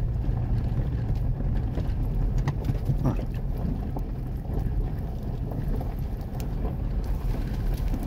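Steady low rumble of a vehicle rolling slowly over a gravel track, heard from inside the cab, with a few small clicks and rattles.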